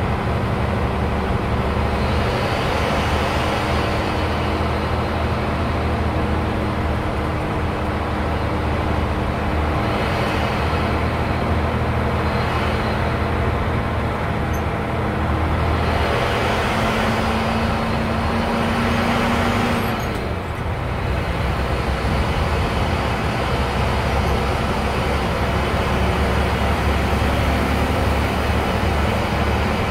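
Bus engine and tyre noise heard from inside the cabin while driving, running steadily, with a short dip in the engine sound about two-thirds of the way through.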